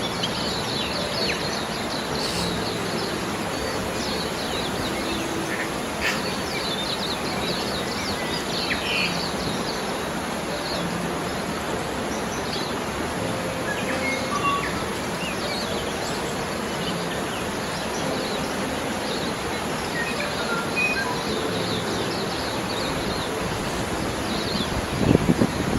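Steady rush of a mountain stream's flowing water, with small birds chirping in short scattered calls over it. A louder low rush comes in near the end.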